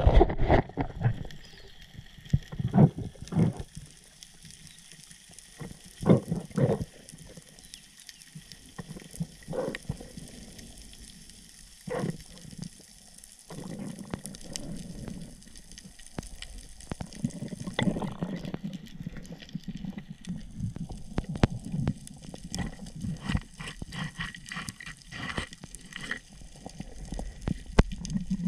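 Muffled underwater sound picked up through a GoPro's waterproof housing: irregular dull knocks and thumps at first, then from about halfway a steady low rumble with many scattered sharp clicks.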